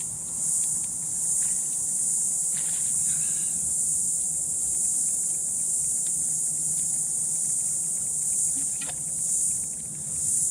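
A steady, high-pitched insect chorus, with a few faint clicks and rustles beneath it.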